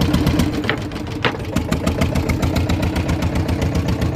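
Fishing boat's engine running with a fast, steady chug, dipping briefly in level about a second in, with a short knock around then.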